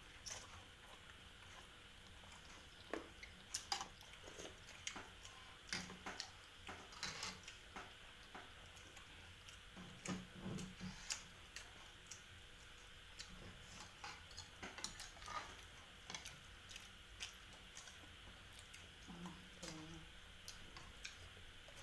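Quiet mukbang eating sounds: two people slurping and chewing noodle soup, with irregular light clicks of forks and spoons against ceramic bowls.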